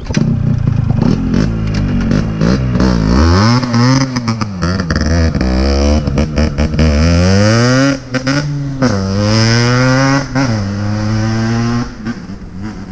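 Yamaha RX135 single-cylinder two-stroke motorcycle pulling away and accelerating hard through the gears. Its engine note climbs again and again, dropping briefly at gear changes about eight and ten and a half seconds in, then fades as it rides off near the end. The bike has been rebuilt and set up to be quiet at low speed and very loud at speed.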